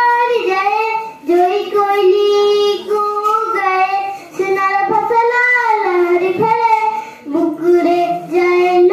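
A young girl singing a patriotic song solo, without accompaniment, in long held phrases broken by short pauses for breath.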